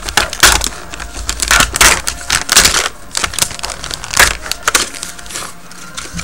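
Crinkly plastic film wrapper being torn open and peeled off a plastic snack tray: a run of sharp, irregular crackles that eases off after about five seconds.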